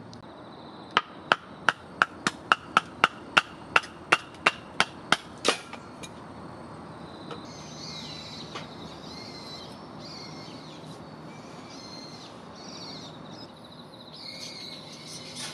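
About fourteen sharp knocks in quick succession, roughly three a second, each with a short ring; then birds calling.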